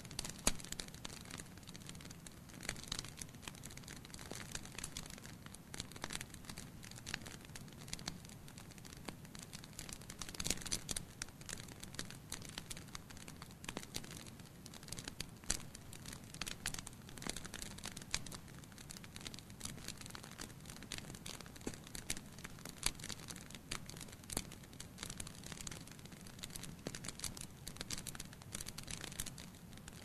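Wood fire burning: irregular crackles and pops of burning logs over a low steady rumble of the flames, with a denser run of crackles about ten seconds in.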